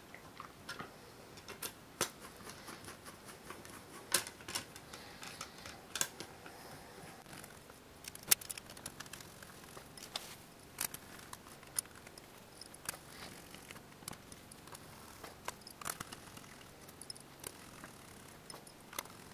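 Irregular small clicks and taps of a hex screwdriver working metal screws through a fibreglass frame plate into standoffs.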